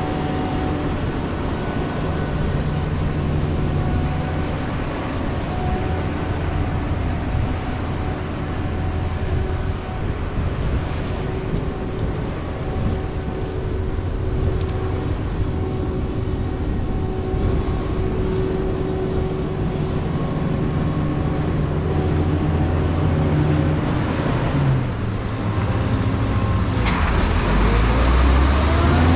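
Heavy diesel farm machinery running steadily under load. The engine note drops slightly about 25 seconds in, and the sound shifts again near the end.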